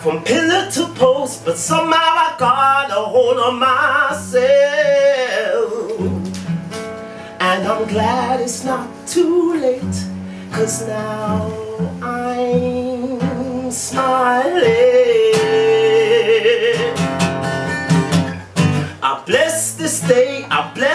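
A man singing live to his own acoustic guitar accompaniment. His voice wavers on some notes, and he holds one long note past the middle.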